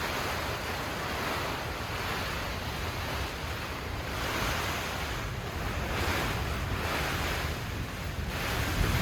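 Strong gusty wind blasting over the microphone: a dense rushing noise with heavy low rumble that swells and eases in gusts.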